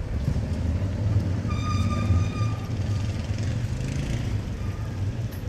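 Low engine rumble of a motor vehicle passing close by on a city street. About a second and a half in, a brief high tone with overtones is held for about a second.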